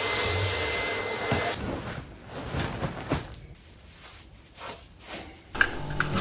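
Canister vacuum cleaner running with its floor brush on a wooden floor, the loudest sound, with a steady whine over its noise; it drops away after about two seconds. Softer rustling and handling sounds follow, and background music comes in near the end.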